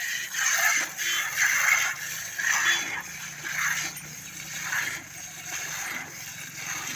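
Cow being milked by hand: streams of milk squirting into a steel pail through its strainer lid, a hissing spurt about once a second that grows fainter.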